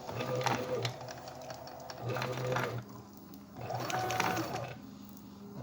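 Stepper motors of a homemade CNC machine driving its axes in three short moves, each a whining run of under a second, with a steady hum between the moves.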